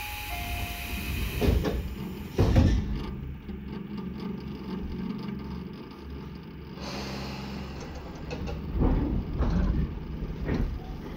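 Sliding doors of a Tobu 10030 series train closing: a short falling two-note tone, then a heavy thud about two and a half seconds in. The car's steady low hum follows, with scattered knocks.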